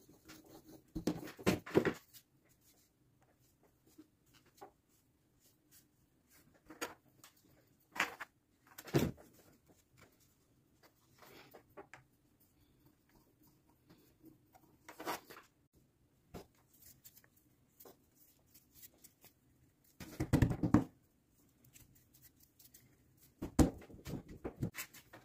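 Hand work at a model-building bench: short scrapes, taps and rustles of tools and materials being handled, coming in small clusters a few seconds apart with quiet between.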